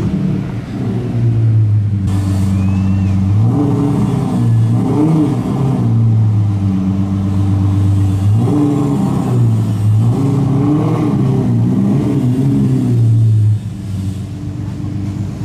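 Lamborghini Murciélago LP670-4 SV's V12 engine running at low speed with several short throttle blips that rise and fall in pitch, between stretches of steady low running.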